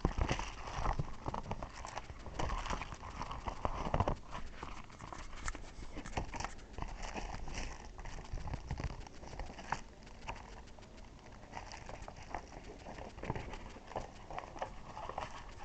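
Handling noises of a paper brochure: irregular rustling and light knocks and taps, with no steady tone.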